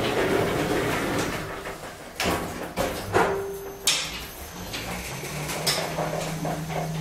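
Lift doors sliding shut, followed by a few sharp clicks and knocks as small objects are handled near the floor. A steady low hum comes in about five seconds in.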